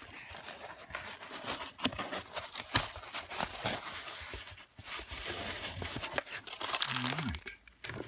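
Packing material crinkling and tearing as a parcel is opened by hand, with scattered sharp clicks and rustles.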